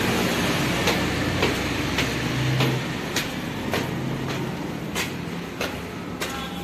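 Footsteps climbing dusty concrete stairs, about two steps a second, over a steady low hum.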